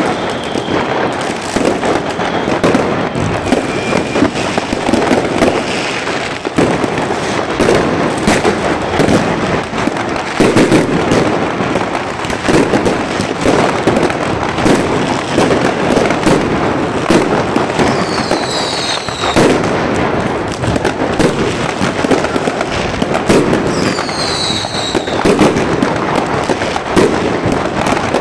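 Many fireworks going off at once: a continuous run of cracks and bangs from rockets and firecrackers. Twice, about two-thirds of the way through and again near the end, a whistle falls in pitch over about a second.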